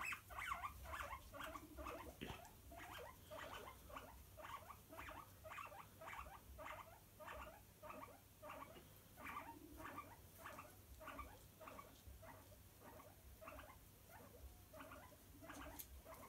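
Guinea pigs making short squeaking calls, faint and repeated about twice a second, as two cage mates squabble.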